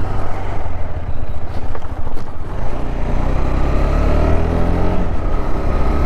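Motorcycle engine running under heavy low rumble, then accelerating from about halfway in, its pitch rising for a couple of seconds.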